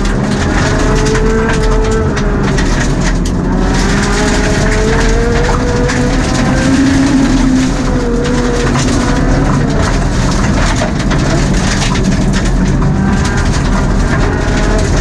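Mitsubishi Mirage Cyborg RS rally car's MIVEC four-cylinder engine at stage pace on gravel, heard from inside the cabin, revs rising and falling as the driver works the throttle. Gravel crunches under the tyres and stones rattle against the underbody throughout.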